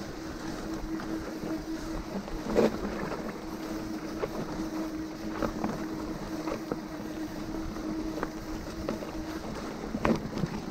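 Mountain bike being ridden on a trail: a steady hum with small rattles from the bike, and two sharper knocks, one about two and a half seconds in and one near the end.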